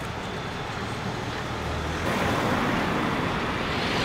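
Street traffic, with a vehicle passing close by and growing louder about halfway through.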